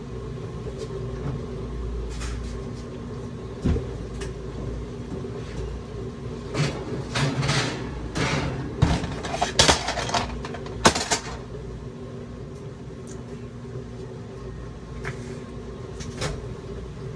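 Kitchen clatter of cookware: a metal baking pan and pots knocked and set down, with a busy run of sharp clanks and knocks in the middle. A steady low hum runs underneath.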